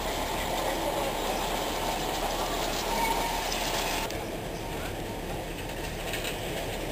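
Darjeeling Himalayan Railway narrow-gauge toy train running, heard from aboard as a steady mechanical rattle of the carriage and wheels. The rattle becomes slightly quieter and duller about four seconds in.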